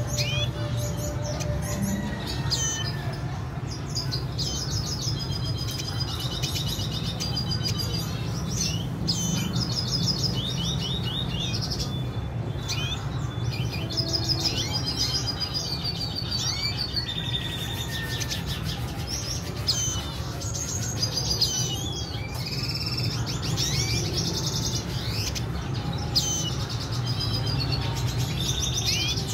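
Caged red siskins chirping and twittering, with quick high trilled phrases of finch song throughout, over a steady low hum.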